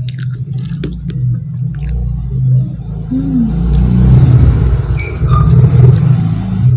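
A loud low rumble that swells about three seconds in and holds, with a hissing haze above it, and a few small clicks early on.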